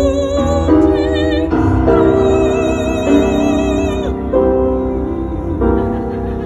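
Operatic singing with wide vibrato on long held notes that change every second or two, over instrumental accompaniment and a steady low bass.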